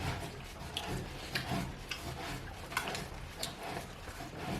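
Eating sounds: quiet chewing and mouth noises with scattered small clicks and taps, about one or two a second.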